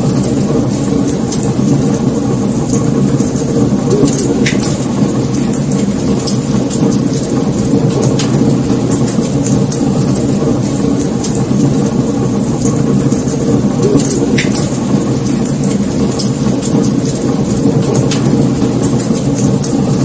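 Wood fire burning: a steady rumble of flames with frequent small crackles, and two louder pops about four and a half and fourteen seconds in.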